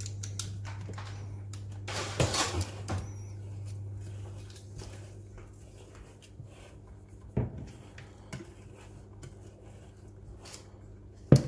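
Silicone spatula scraping and spreading thick cake batter in a metal springform pan, with light knocks and clatter of the pan, plus a louder clatter about two seconds in and a sharp knock near the end. A low steady hum runs underneath and fades about halfway.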